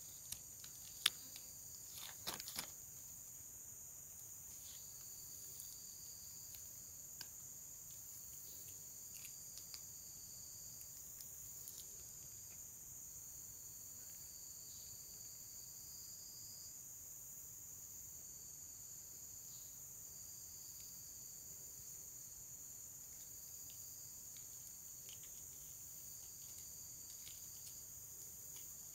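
Faint insect chorus: steady high-pitched trilling, with a second, lower call that starts and stops every few seconds. A few sharp clicks come in the first seconds, the loudest about a second in.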